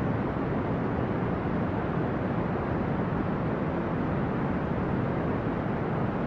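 Steady brown noise: a deep, even hiss, strongest in the low rumble and dull in the highs, with no changes or events.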